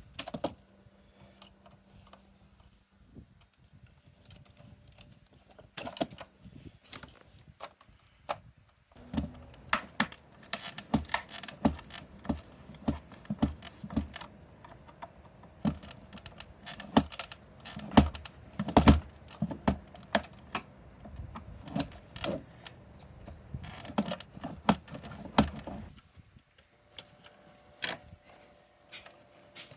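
Irregular clicks, taps and small metallic clatter of tools and parts being handled while a hot tub spa pack is taken apart, busiest through the middle stretch.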